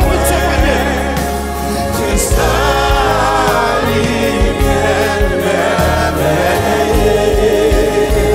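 Gospel worship team singing a Haitian Creole worship song into microphones, several voices together, over steady low accompaniment with a regular beat.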